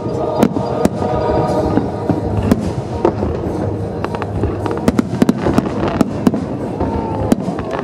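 Aerial fireworks shells bursting in quick succession, many sharp bangs and crackles several times a second, with music playing underneath.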